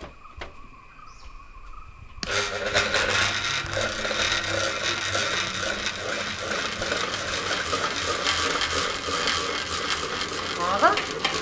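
Old, worn ceiling fan setting off suddenly about two seconds in, into a loud, continuous clattering rattle of fast clicks over a steady hum. It is the noise of a dry, battered fan that is said to be all noise and little breeze.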